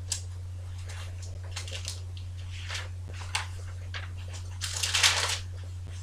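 Thin Bible pages rustling and being turned by hand while a passage is looked up, with one longer, louder page turn about five seconds in. A steady low electrical hum runs underneath.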